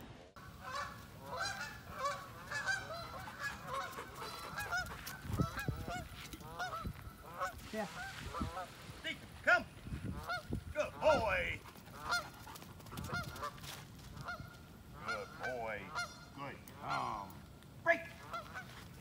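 Geese honking over and over, many short calls overlapping one another, loudest about halfway through.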